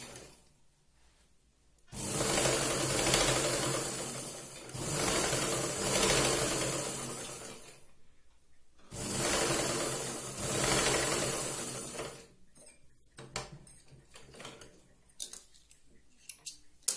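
Black straight-stitch domestic sewing machine running as it sews a seam, in three spells of about three seconds each with short stops between. Near the end come a few scattered light clicks as the threads are snipped with scissors.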